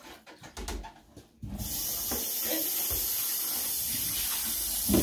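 A few knocks as a plastic wash basin is handled at a sink, then the faucet is turned on about one and a half seconds in and water runs steadily into the sink. One sharp knock near the end as the basin is handled under the stream.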